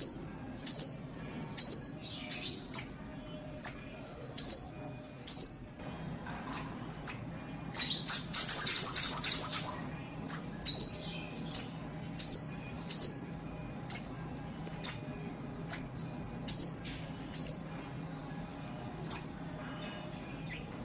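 A kapas tembak songbird calling: short, high, falling chirps repeated about once a second, broken about eight seconds in by a rapid two-second trill, then more single chirps.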